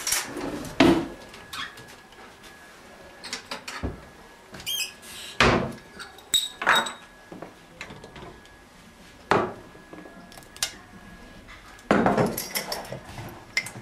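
Kitchen handling noises: scattered knocks and clinks of glasses, a moka pot and a jar set down and picked up on a countertop. There is a short squeak about five seconds in and a ringing glass clink just after it.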